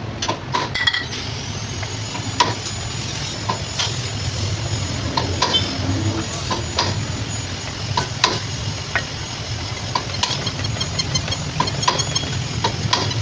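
Golf cart running with a steady low hum, with short squeaks and clicks coming at irregular intervals. This is the squeak the owners are hunting down, which a spray of WD-40 cures.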